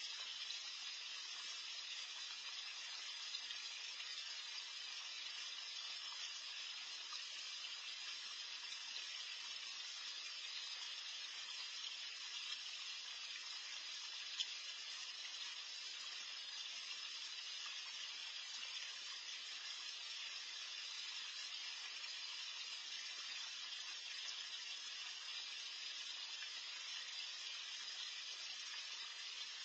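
Steady, even hiss of moving water from a backyard pond's bubbling water feature, with one brief faint tick about halfway through.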